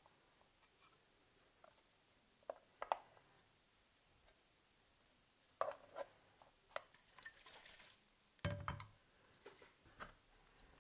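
Siemens A40 phone's plastic housing parts being laid into a glass dish of soapy water: scattered light clicks and knocks of plastic against glass, a soft swish of suds, and one duller, deeper thump past the middle.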